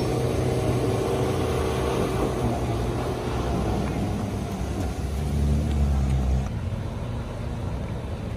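Off-road 4x4's engine revving hard as it drives through a shallow river, over the rush of water spray. The engine swells about five seconds in and drops away suddenly about a second later.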